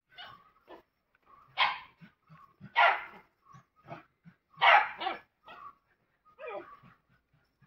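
A dog barking several times in short, separate barks, with a quick double bark near the middle and a falling yelp-like call near the end.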